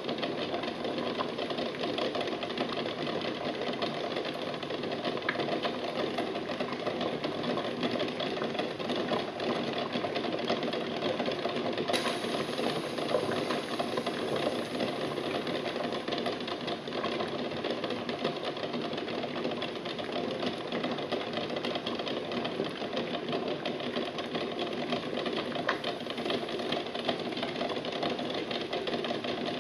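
Water at a rolling boil in a stainless steel pot, with a steady rapid rattle of eggs knocking against the pot and each other.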